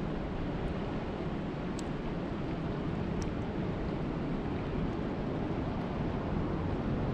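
Steady rain falling, an even rushing hiss with a couple of faint sharper drop ticks about two and three seconds in.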